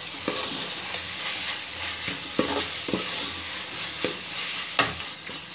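Boiled potatoes being stirred and mashed into masala frying in a steel pot with a steel ladle: a steady sizzle, broken by several scrapes and knocks of the ladle against the pot. The sharpest knock comes near the end.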